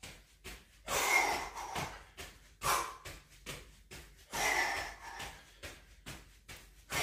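A man breathing hard while doing jumping jacks, with four strong, breathy exhalations about one and a half to two seconds apart.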